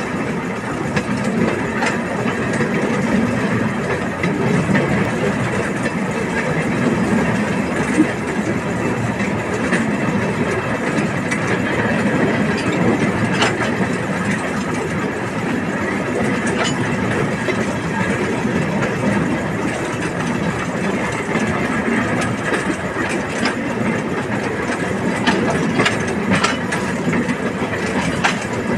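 Narrow-gauge train running along the track: the small diesel locomotive's engine running steadily, with the wheels clicking over the rail joints now and then.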